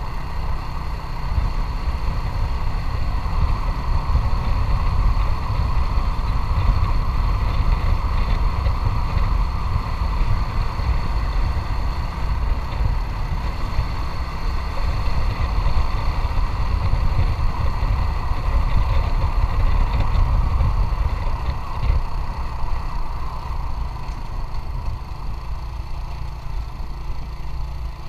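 Motorcycle riding along, its engine running steadily under a heavy low rumble of wind on the microphone. It becomes a little quieter over the last few seconds.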